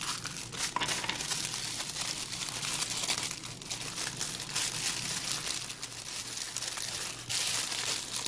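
Crinkling, rustling and tearing of toy packaging as a doll's small accessory box is opened and its contents unwrapped by hand, a steady run of small crackles that grows loudest near the end.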